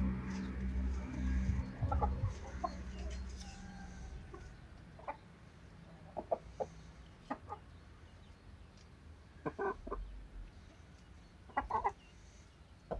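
Chickens clucking now and then, short single clucks scattered through, with louder bunches of calls about ten and twelve seconds in. A low hum fades away over the first few seconds.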